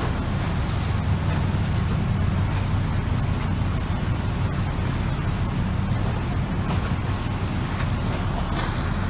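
Strong wind blowing across the microphone, over a steady low hum.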